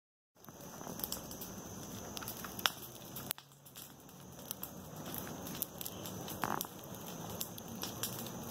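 Bonfire crackling, with scattered sharp pops over a steady hiss; it starts abruptly about half a second in after dead silence.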